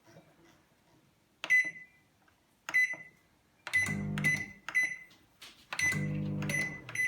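Daewoo microwave oven keypad beeping: about eight short, sharp beeps, each a button press. A low hum comes in twice for about a second.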